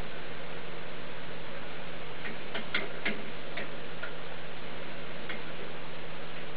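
Clear plastic Habitrail mini exercise wheel turning and rattling as deer mice run in it and clamber on it. There is a steady ticking, with a handful of sharper clicks in the middle stretch.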